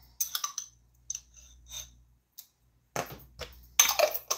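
Light clinks and taps on a glass relish jar as relish is scooped out of it into a bowl, scattered through the first second and a half, with a denser clatter near the end.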